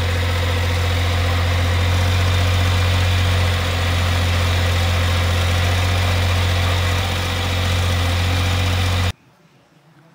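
John Deere 1545 front mower's diesel engine running steadily, with two slight dips in level while the MCS 600 bagger's hopper is raised on its hydraulic dump. It cuts off abruptly near the end.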